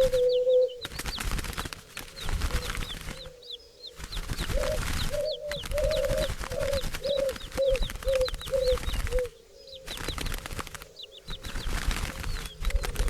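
Flock of birds, doves among them: wings flapping and rustling, with short high chirps throughout and, in the middle, a run of about nine short low calls that fade. The sound drops out briefly a few times.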